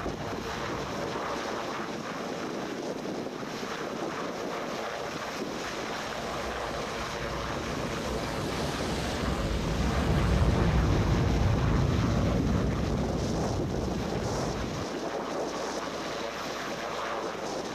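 Rushing wind and rough sea, a steady dense noise. A deep rumble swells up about eight seconds in and drops away abruptly near fifteen seconds.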